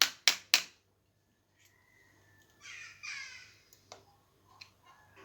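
Three sharp knocks of a kitchen utensil in quick succession, then two short harsh calls about three seconds in, with a few faint clicks.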